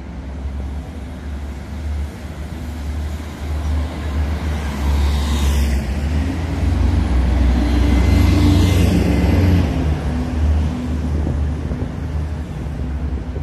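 A coach bus drives past, its engine growing louder to a peak about eight seconds in and then fading. Steady low traffic rumble runs underneath.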